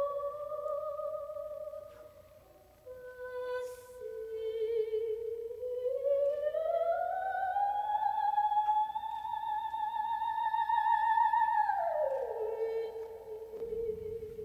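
Slow, wordless music: a single sustained, wavering melodic tone that glides up about an octave midway through, holds the high note, and slides back down near the end.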